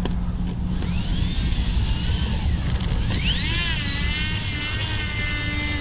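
Avios Albatross HU-16 V2 RC flying boat just after a belly landing: a rushing hiss for about two seconds as the hull slides across the grass, then its twin brushless outrunner motors with three-blade props whine up in pitch about three seconds in and hold steady as it taxis.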